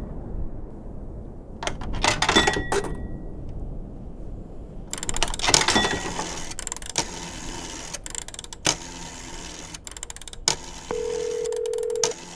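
Pay telephone in use: coins dropping into the slots with a short ringing chime, then the rotary dial being turned and clicking as it runs back. Near the end a steady tone of about a second sounds on the line.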